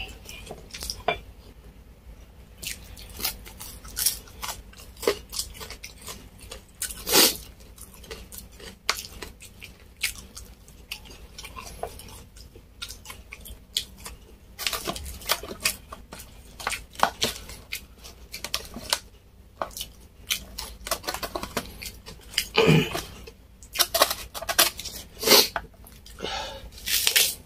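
Close-up eating sounds: hands pulling apart beef crispy pata in a foil tray, with chewing, as a run of irregular clicks and crackles and a few louder crunches. Near the end, lettuce leaves are handled and torn.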